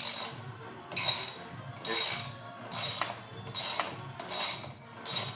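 Ratchet wrench worked back and forth on the front axle pinch bolt, with a short burst of pawl clicking on each return stroke, about once a second.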